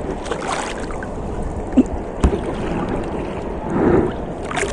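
Steady rushing of surf and wind at the shore, with two sharp knocks about two seconds in.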